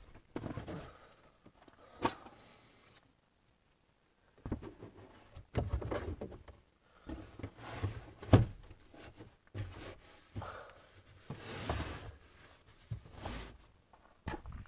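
Irregular knocks, thumps and rattles of things being handled and moved about inside a car, with a short break of complete silence a few seconds in.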